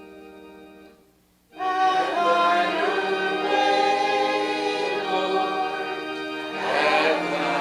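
A church organ's hymn introduction dies away, and after a short pause, about a second and a half in, the congregation starts singing the hymn with the organ.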